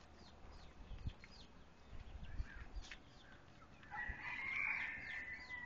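Faint poultry sounds: short scattered chirps, then a rooster crowing about four seconds in, one held call that trails off.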